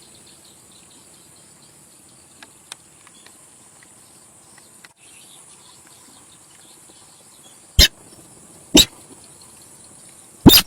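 Recorded sintar sawah bird calls: a few faint chirps over a steady hiss, then three loud, very short, sharp calls in the second half.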